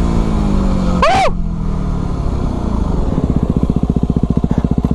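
Yamaha WR250R's single-cylinder four-stroke engine winding down in falling pitch as the throttle is closed. About three seconds in it settles into an idle with a rapid, even pulse.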